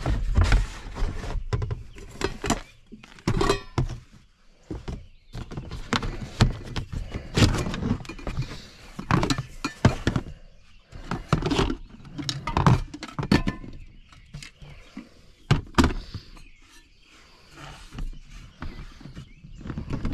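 Camp cookware being rummaged through in plastic storage bins: irregular thunks and clinks as metal pots, cups and plastic lids are lifted and set down.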